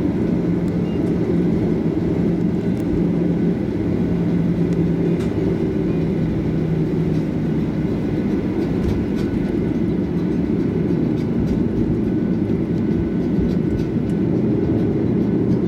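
Steady low rumble inside the cabin of a Boeing 737-800 taxiing, with its CFM56 turbofan engines running at taxi power. A faint steady hum fades out about seven seconds in.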